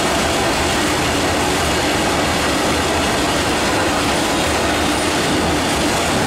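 Freight train of open-top bogie wagons rolling past: a steady rumble of wheels on rail.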